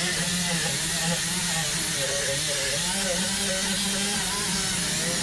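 Power drill spinning a wheel against the metal to scrub old gasket and sealant off a Crusader 270 engine's intake mating surface. The motor hums steadily with a hiss from the wheel, its pitch wavering with the load and rising about two and a half seconds in.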